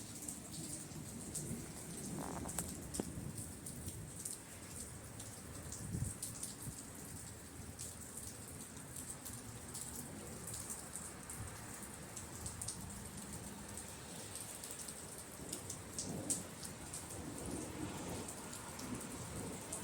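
Steady rain during a thunderstorm, many separate drops striking a surface, with low uneven rumbles of distant thunder rising and falling a few times.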